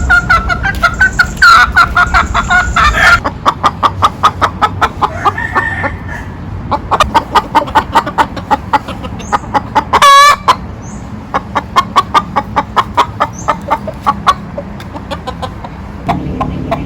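A hen calling: a loud drawn-out call for the first three seconds, then runs of quick clucks at about four a second, broken by one short loud squawk about ten seconds in.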